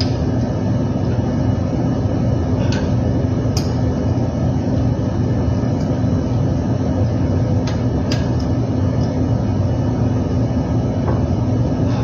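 Overhauled reciprocating compressor running steadily with a constant low hum, a few short sharp clicks over it.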